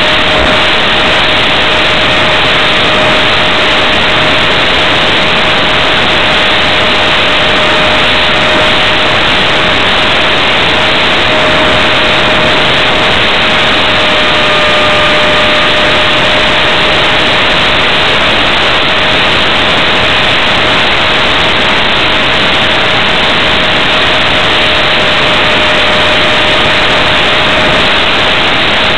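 Air rushing hard over an onboard camera's microphone on an RC flying wing in flight, with the steady whine of its electric pusher motor holding one pitch at constant throttle.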